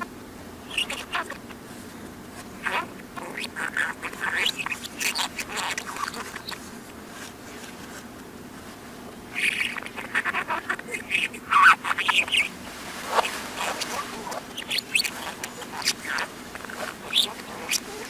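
Budgerigar chatter played in reverse: quick warbling chirps and clicks, broken by a pause of a few seconds midway, over a faint steady hum.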